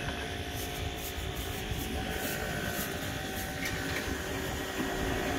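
Steady low rumble of outdoor street background noise, with a faint steady hum and a few light ticks.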